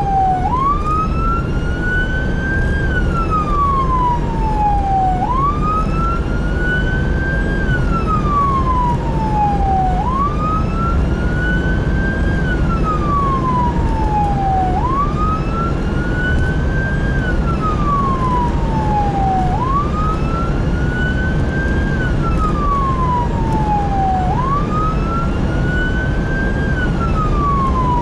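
Emergency vehicle siren on wail, sweeping up quickly and falling slowly about every five seconds, over a steady low engine and road rumble.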